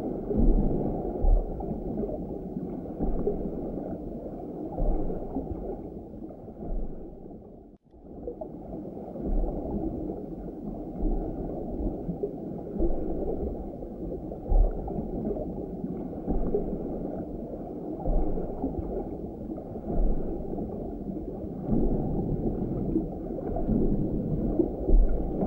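Muffled underwater sound picked up by a GoPro in its waterproof housing hanging on a fishing line: a dull rush of moving water with irregular low bumps, cutting out briefly about eight seconds in.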